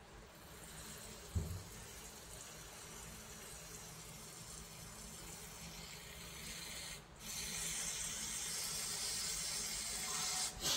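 Steady hiss of anti-termite chemical forced under pressure through a hose and plastic nozzle into an injection port in the wall, with a low thump about a second and a half in. The hiss breaks off briefly about seven seconds in and comes back louder.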